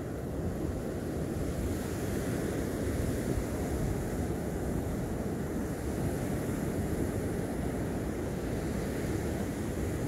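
Steady wash of ocean surf breaking on the beach, with wind noise on the microphone.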